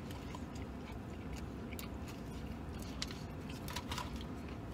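A man biting into and chewing a mouthful of a meat-stacked sandwich, the chewing heard as scattered short mouth clicks over a steady low hum.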